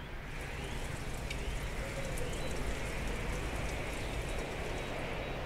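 Weather sonification playing over loudspeakers: a steady wind-like rushing hiss that stands for a breeze freshening from the south-west, with a light rain-like patter and a few faint chirps.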